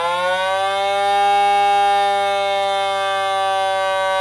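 ContiTest 503 continuity tester's built-in sounder giving a low, buzzy tone with many overtones across a defective 470 µF electrolytic capacitor; the pitch rises slightly at first, then holds steady instead of fading away, the sign that the capacitor never charges fully and is faulty.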